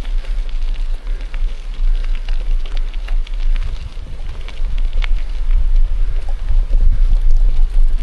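Mountain bike riding over a gravel forest road: tyres crackling on loose stones and the bike rattling in irregular ticks, under a heavy rumble of wind on the microphone.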